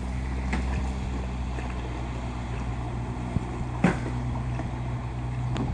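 Yamaha outboard motor on a pontoon boat running steadily under way, a low even hum. A single sharp knock sounds about four seconds in.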